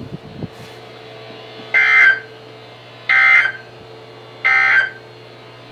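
Three short bursts of an Emergency Alert System SAME header: harsh, high-pitched digital data tones, each about half a second long and evenly spaced, marking the start of a new alert. A steady low hum runs underneath.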